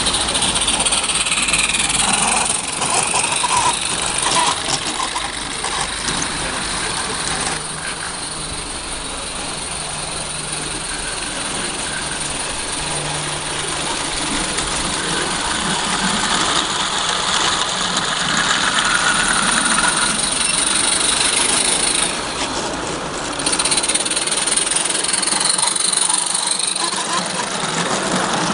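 A 16 mm scale garden-railway train running along the track: a steady mechanical running noise with a brief drop in level near the end.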